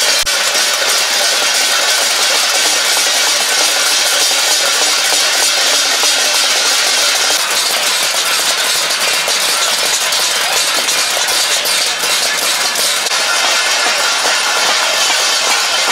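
Many steel plates beaten with spoons and sticks at once, a loud, continuous metallic clatter in which no single beat stands out: plate-banging as a hunger protest.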